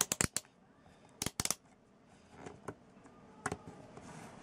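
Sharp small clicks in quick clusters: three or four together at the start, three more about a second in, single clicks around two and a half seconds, and another small cluster near three and a half seconds.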